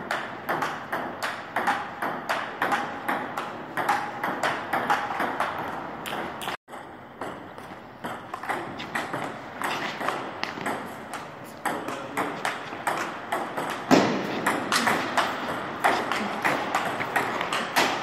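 Table tennis rally: the ball clicks back and forth off the paddles and the Cornilleau table in a quick, regular rhythm of a few hits per second. About a third of the way through, the sound drops out briefly, then the hitting carries on.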